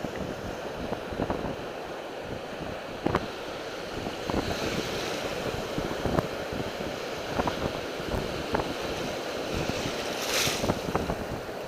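Storm wind buffeting the microphone over surf washing on the beach in a heavy downpour, with scattered sharp clicks like raindrops striking the mic. About ten seconds in, a brief hissing swell rises.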